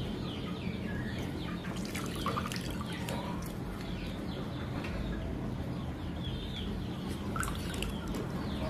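Lime juice dripping and trickling into a ceramic bowl from a hand-held metal citrus press as halved limes are squeezed, with a few light clicks.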